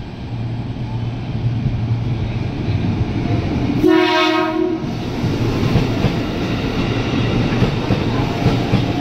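Ex-Tokyo Metro 6000 series electric commuter train pulling into the platform, its running noise growing louder as the cars roll past. About four seconds in, one horn blast lasting about a second.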